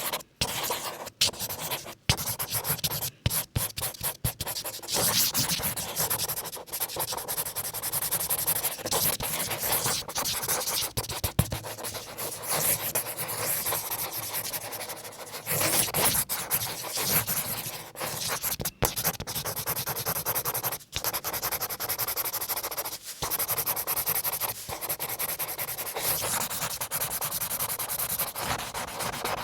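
Felt-tip marker drawing on paper: scratchy strokes, short and broken at first with brief pauses, then longer continuous scribbling.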